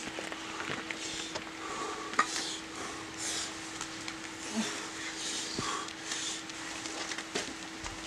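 Bouldering climber's hands and rubber climbing shoes scuffing and tapping on granite holds while moving through a steep overhang. There are a few sharp taps, the loudest about two seconds in, among short scraping rubs.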